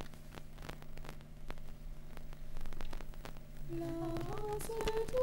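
Steady electrical hum and static hiss with scattered clicks, as on an old analogue soundtrack. About four seconds in, a voice starts up in gliding and then held tones.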